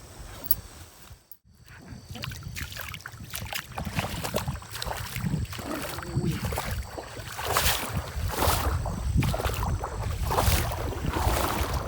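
Water sloshing and splashing in irregular strokes, louder after the first few seconds.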